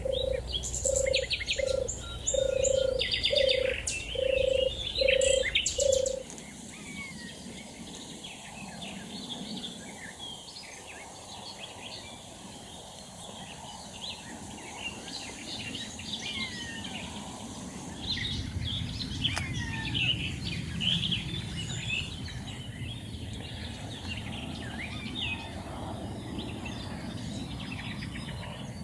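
European turtle dove purring, a run of about seven low, evenly spaced purrs, with other birds chirping high above. The purring stops suddenly about six seconds in, and a mixed chorus of small songbirds carries on, with a low rumble joining later.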